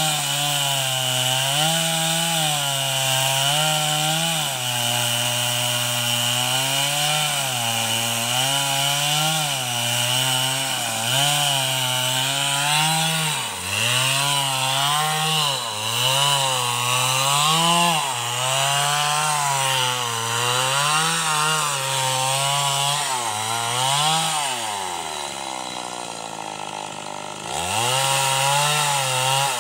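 Two-stroke chainsaw cutting through wooden planks. Its engine speed rises and falls every second or two as the chain bites and frees. Near the end it drops to idle for a couple of seconds, then revs back up.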